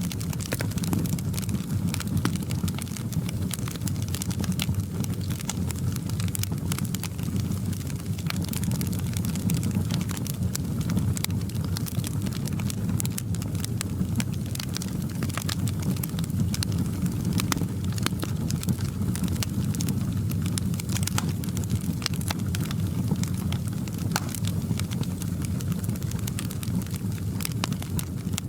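Fireplace fire burning steadily, a low roar with frequent small irregular crackles and pops of burning wood.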